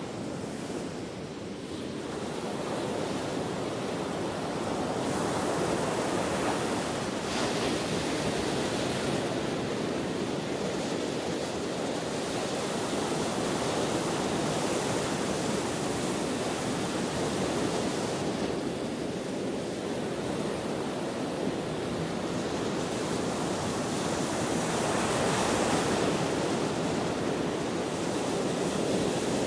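Ocean surf: waves breaking and washing in as a continuous rushing noise that swells and ebbs every several seconds, with wind blowing across the microphone.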